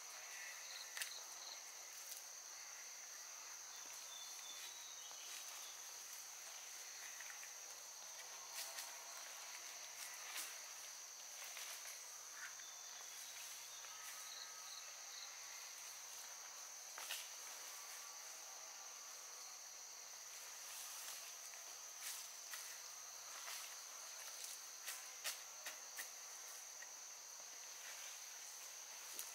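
Insects chirring steadily in one high, unbroken tone, with scattered rustles and snaps of leafy stems being pulled up and handled.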